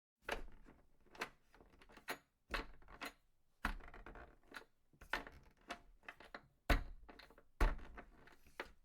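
An irregular series of about a dozen sharp knocks and clicks, each dying away quickly; the two loudest come close together late in the sequence.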